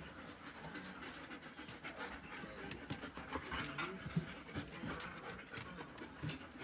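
A dog panting quietly and steadily.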